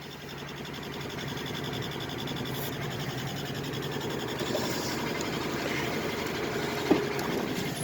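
2004 Ford E350 van's engine running steadily at idle, freshly started after a hard start. A short click sounds about seven seconds in.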